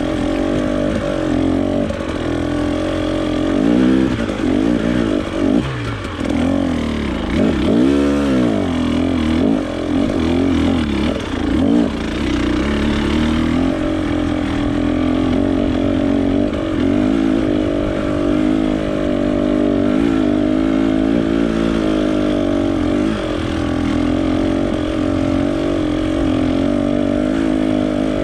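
Off-road trail motorcycle engine running under load while riding, its pitch rising and falling with the throttle, with a sharp drop and climb in revs about eight seconds in.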